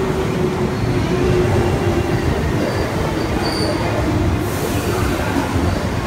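A JR West 221 series electric train running past a station platform: a steady rumble of wheels and motors, with faint high wheel squeals near the middle and a short hiss about four and a half seconds in.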